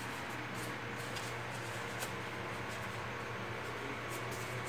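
Faint rustling and a few light scrapes from hands working EVA foam trousers onto a foam doll body, over a steady low hum.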